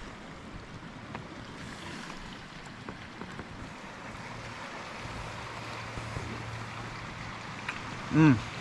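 Steady wash of sea and wind at the shore of a pebble beach, with a faint low hum joining about halfway. Near the end, a man makes one short, loud hummed sound.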